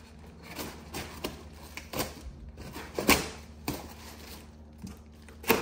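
Irregular clicks and knocks of hard parts being handled and set down while a boxed decoration kit is unpacked, with the sharpest knocks about three seconds in and near the end.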